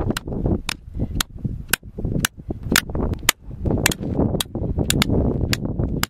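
Stake hammer repeatedly striking a tent stake to drive it into rocky ground, about two sharp cracking blows a second, with wind rumbling on the microphone underneath.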